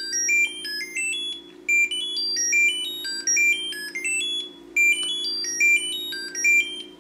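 Nut 3 Bluetooth tracker ringing: a fast tune of short, high electronic beeps stepping up and down in pitch, the phrase repeating about every second and a half, stopping just before the end. It peaks at about 86 dB on a sound meter close by.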